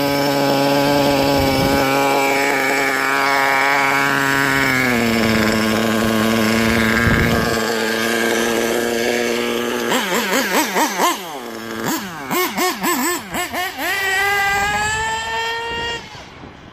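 Losi 8IGHT 1/8-scale nitro buggy's two-stroke glow engine idling steadily, then from about ten seconds in revved in a string of quick throttle blips, climbing into a sustained high rev that drops away near the end.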